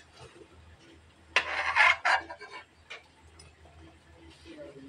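Metal cookware clattering: a short burst of a few knocks and scrapes about a second and a half in, then a couple of light ticks.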